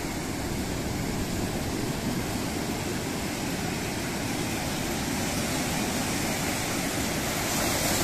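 Sea waves breaking and washing up a sandy beach: a steady rush of surf that grows a little louder near the end.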